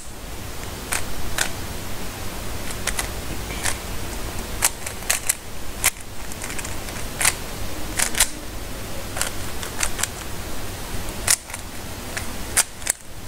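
Plastic 3x3 Rubik's cube being twisted by hand: irregular sharp clicks as the layers turn and snap into place, often several in quick succession.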